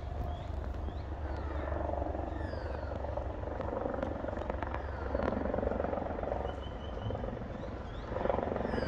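Low steady rumble of wind buffeting the microphone, with birds calling in short, quick falling chirps scattered throughout.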